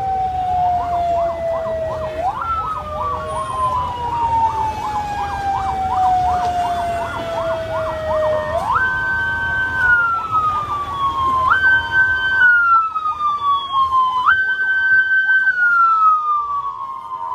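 Emergency vehicle sirens sounding together. One wails, jumping up in pitch and falling slowly, about every two to six seconds, while another warbles rapidly up and down beneath it.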